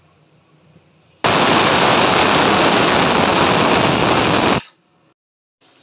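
Steam hissing hard out of an aluminium pressure cooker's vent for about three and a half seconds, starting abruptly a second in and cutting off suddenly: the cooker's pressure being let out.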